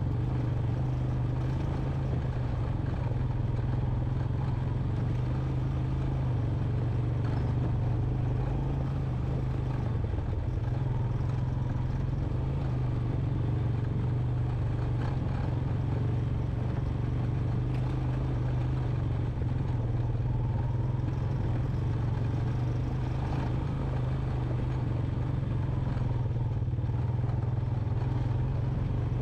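2001 Honda Recon 250 ATV's single-cylinder four-stroke engine running steadily under way on a rough dirt trail, with occasional clatter over the rocky ground.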